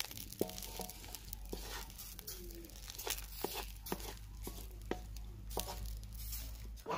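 Wooden spatula stirring melting jaggery in an aluminium karahi, giving irregular scrapes and clicks against the pan, over a low steady rumble.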